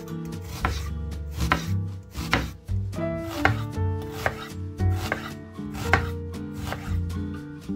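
Chef's knife dicing an onion on a bamboo cutting board: a steady run of crisp blade strikes against the wood, about two a second, over soft background music.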